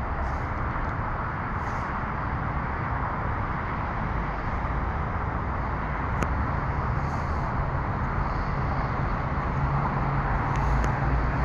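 Steady engine noise with a low rumble, getting slightly louder over the last few seconds.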